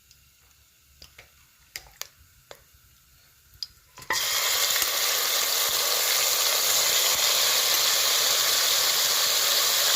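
A few faint clicks, then about four seconds in a sudden loud sizzle as marinated mutton goes into hot oil with frying cinnamon sticks, sizzling steadily.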